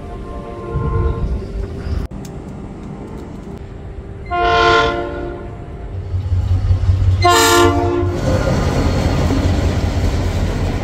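Train approaching and sounding its horn in two blasts of about a second each, a few seconds apart, with a fainter horn call just before. The locomotive's engine rumble builds, and from about 8 seconds in the train runs past close by with a loud rush and clatter of wheels on the rails.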